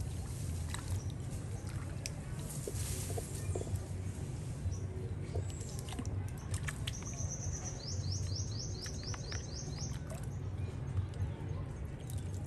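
Water sloshing and splashing in a plastic bucket as small monkeys bathe in it, heard as scattered short splashes and drips over a low steady rumble. About seven seconds in, a bird gives a high note and then a rapid run of quick falling chirps.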